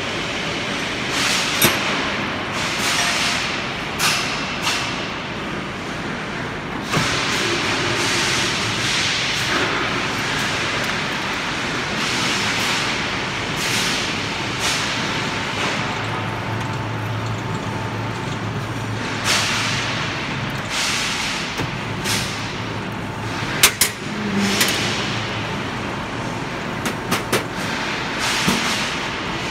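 Rebar rib-peeling and thread rolling machine running, its rolling head turning to peel the ribs and roll a parallel thread onto a rebar end. Several sharp metallic knocks near the end, from a hammer striking metal.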